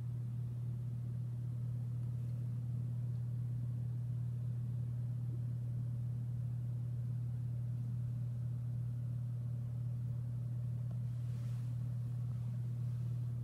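A steady low hum on one unchanging tone, with no rise or fall, over faint room noise.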